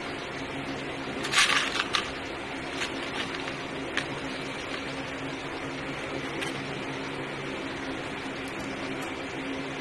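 A steady low mechanical hum, like a fan, with a short clatter of clicks a little over a second in and a few single light clicks after.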